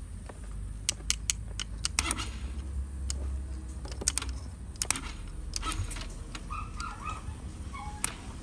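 Screwdriver clicking and tapping against a scooter battery's terminal screw and metal bracket: a quick run of sharp metal clicks about a second in, more around four to five seconds, and one near the end.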